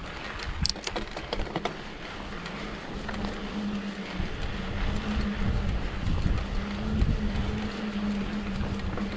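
Trek Slash 7 mountain bike rolling down a dirt trail: a steady buzz, broken off briefly a few times, over tyre noise and wind on the microphone. A few sharp clicks and rattles sound in the first two seconds.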